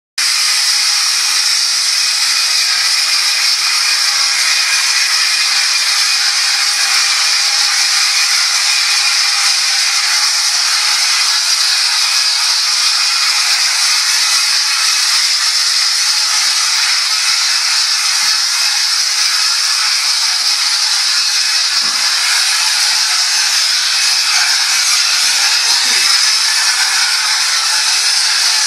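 Steady hiss of compressed air at the nozzle of a plastering spray lance, atomising finish plaster onto a ceiling.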